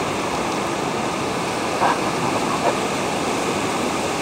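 Steady rush of whitewater: river rapids running fast.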